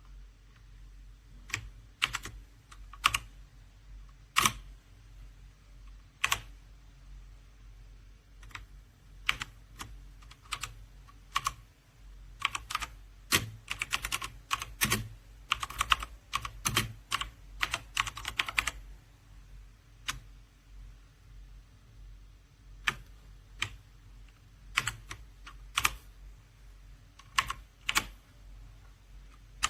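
Clicky blue-switch keys of a MageGee mechanical keyboard being typed on: scattered single keystrokes, with a run of quick typing in the middle.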